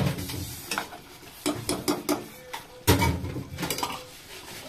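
Metal spatula stirring curry gravy in a non-stick pot: a string of scrapes, with clinks and knocks against the pot, the sharpest at the start and about three seconds in, over a faint sizzle.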